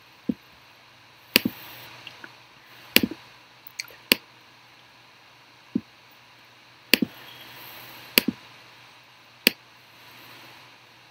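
Computer mouse clicking: about a dozen sharp clicks at irregular intervals, some in quick pairs.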